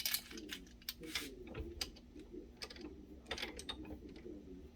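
Irregular light clicks and clatter of hand tools and small bike parts being handled during repair work.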